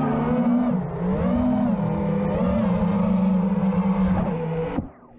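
FPV freestyle quadcopter's brushless motors and propellers whining, the pitch rising and falling repeatedly with the throttle, then cutting off suddenly near the end.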